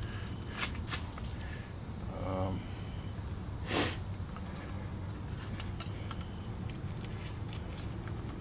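Crickets chirring in a steady high-pitched trill, with a few faint clicks and one short, louder noise about four seconds in.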